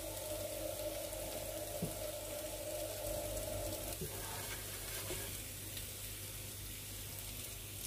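Spiced chicken pieces sizzling in oil in a frying pan as a dry fry nears done, the gravy cooked off, with the pieces stirred partway through. A steady hum cuts off about four seconds in.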